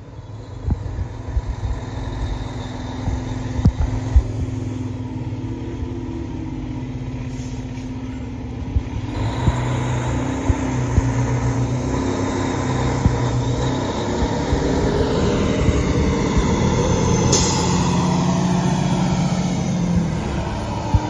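A 2016 Pierce Arrow XT 95-foot mid-mount aerial ladder fire truck pulling out and driving past, its diesel engine running louder from about nine seconds in as it comes closer. A couple of sharp knocks sound about four seconds in.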